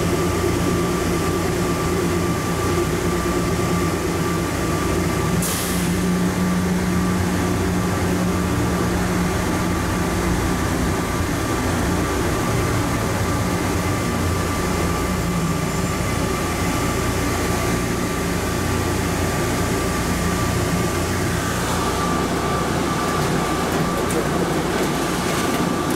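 Automated people mover train running through a tunnel: steady running noise with a low hum and a thin, steady whine. A brief hiss sounds about five seconds in.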